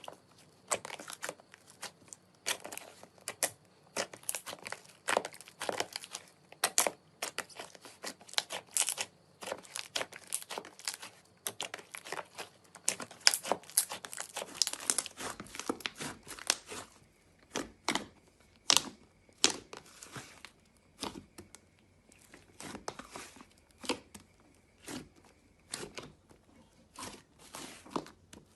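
Slime being squeezed, stretched and pressed by hand, giving a dense run of sticky clicks, crackles and small air-pocket pops.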